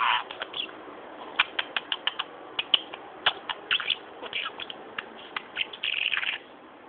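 Budgerigar chattering: a quick, irregular run of clicks and short chirps, with a louder burst of chirping about six seconds in.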